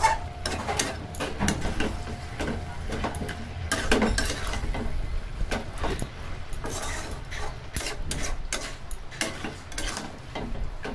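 A flat metal spatula scraping and clinking against a kadai as raw chicken pieces are turned and stir-fried in spice paste, with irregular scrapes and knocks throughout.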